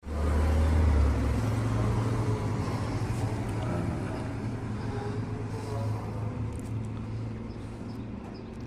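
A motor vehicle's engine rumbling low, loudest at the start and growing steadily quieter, as if pulling away.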